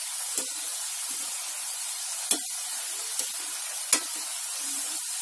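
Shakkar pare dough pieces sizzling steadily as they deep-fry in hot oil in a metal kadai. A spatula stirring them knocks sharply against the pan three times, loudest near the end.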